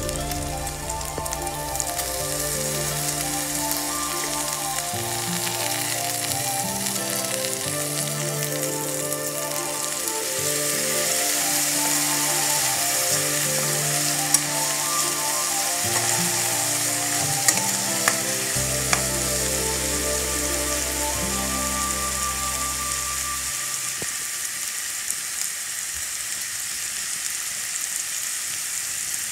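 Pork slices with onion and ginger sizzling as they fry in a pan, with a few clinks of a metal spoon against the pan about halfway through as they are stirred. Background music plays throughout.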